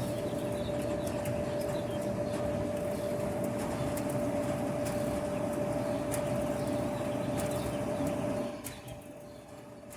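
Kenmore Elite gas dryer running on a test: the drum turning with a steady hum and a few light clicks, and no squeal, the out-of-place drum roller having been dealt with. About eight and a half seconds in the sound drops sharply to a quieter hum.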